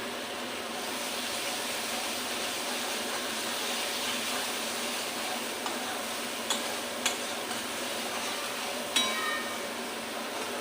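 Spice paste sizzling as it fries in oil in a pan while it is stirred. In the second half a stirring utensil knocks sharply on the pan a few times, the last knock ringing briefly.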